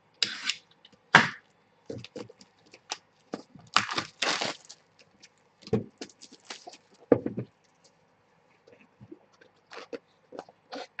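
Trading-card boxes and their packaging being torn open and handled: irregular bursts of tearing and rustling with sharp cracks and scrapes, separated by short pauses.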